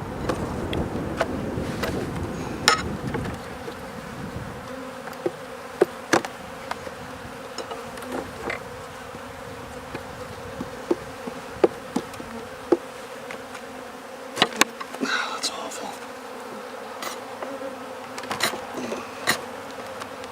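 Honeybees buzzing steadily around an open hive, with scattered sharp clicks and knocks of wooden hive frames and boxes being handled.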